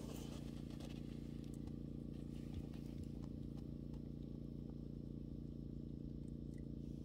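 A steady low hum of several stacked tones, unchanging throughout, with a few faint scattered clicks over it.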